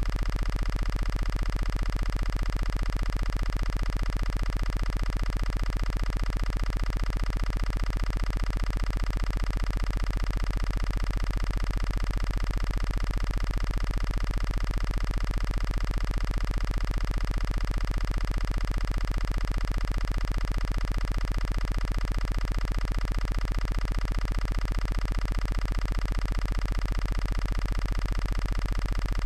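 A steady, unchanging electronic drone: several fixed tones over a deep low hum, with no shots or other sudden sounds.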